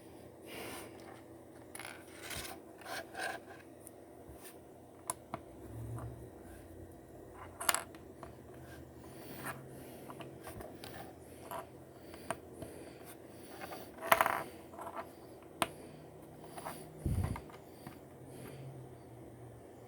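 Small LEGO plastic pieces clicking and scraping as they are handled and snapped together, in scattered irregular clicks with a few louder ones.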